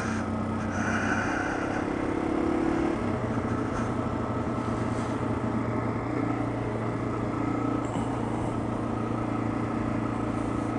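Yamaha TW200's single-cylinder four-stroke engine running steadily at a cruise while the motorcycle is ridden, heard from the rider's helmet-height camera.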